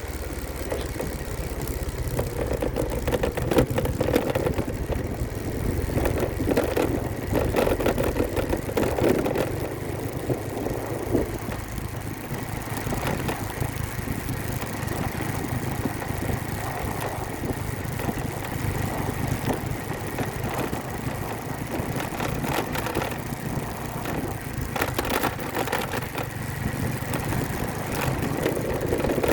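Motor vehicle engines running and idling in road traffic, a steady rumble that swells and eases a little.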